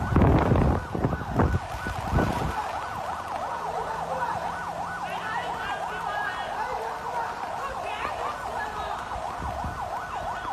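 An emergency vehicle siren wailing in a fast yelp, its pitch rising and falling several times a second. A few loud rumbling bursts of noise sound over it in the first two and a half seconds.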